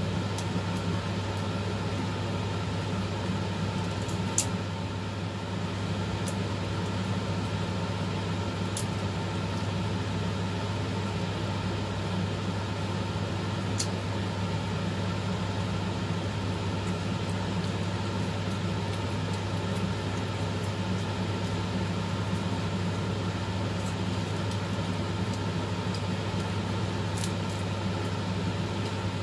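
Steady low machine hum with an even drone and overtones, unchanging throughout, with a few faint sharp clicks scattered through it.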